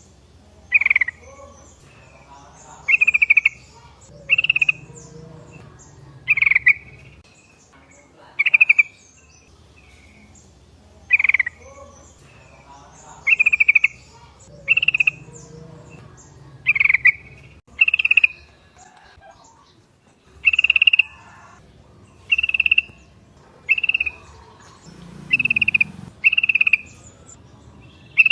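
Yellow-vented bulbul (trucukan) giving short, loud calls over and over, one roughly every second and a half.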